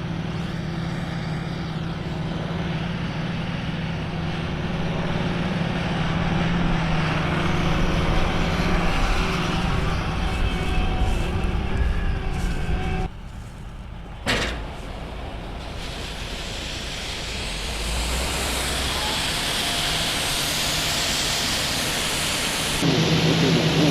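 Combine harvesters and a tractor pulling a grain wagon running in a soybean field: a steady engine drone with a broad mechanical rumble. About halfway through the sound drops off abruptly, a sharp knock follows, and then a steadier, airier machine noise carries on.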